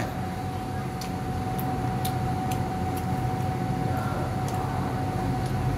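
Steady low machine hum with a constant high tone through it, and a few faint light clicks of a metal fork against a ceramic bowl and plate.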